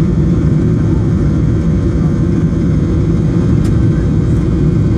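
Cabin noise of a Boeing 737-800 on its takeoff roll: the twin CFM56 turbofans at high thrust and the runway rumble, heard from inside the cabin as a loud, steady low roar.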